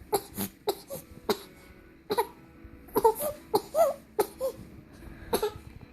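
A little girl hiccuping in short, sharp gulps, about ten in a few seconds, irregularly spaced, mixed with brief whimpering, fussy cries.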